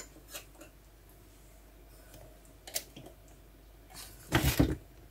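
A few light clicks and taps of kitchenware, then near the end a louder rubbing with dull bumps: the camera being handled and turned.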